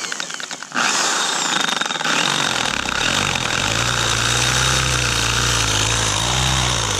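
An electric power tool runs with a harsh, steady noise, working metal for the motorcycle exhaust's mounting. It starts about a second in, and a low hum builds up partway through.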